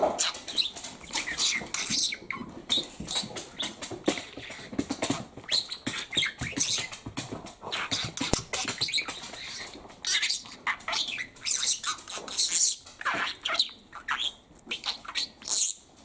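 Budgerigar chattering: a rapid, continuous run of short chirps, warbles and clicks, with a brief lull about two-thirds of the way through.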